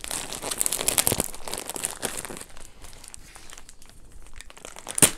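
Thin plastic mailer bag crinkling and rustling as it is handled and its packing tape picked at, busiest in the first half and quieter after, with one sharp snap just before the end.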